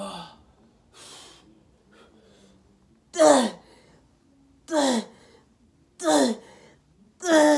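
A man's breathy exhales, then four loud strained cries, each falling in pitch, about one every second and a half, as he grinds out heavy dumbbell reps to failure.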